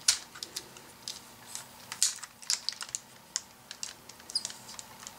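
Irregular small clicks and clacks of a G1 Transformers Snapdragon toy's parts being rotated and handled into position, about a dozen sharp taps at uneven spacing, the loudest right at the start and about two seconds in.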